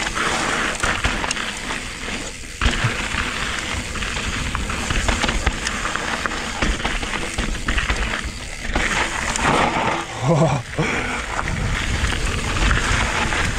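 Mountain bike tyres crunching and sliding over loose, slippery gravel on a fast descent, with the bike rattling and steady wind noise on the microphone. A short rising vocal exclamation comes about ten seconds in.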